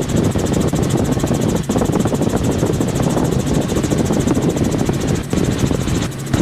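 Piston-engined helicopter in cruise flight, engine and rotor running steadily, heard from the cabin as a loud, even drone.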